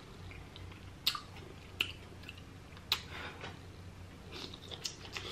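A person eating king crab meat, chewing with a few sharp wet mouth smacks, the clearest about one, two and three seconds in.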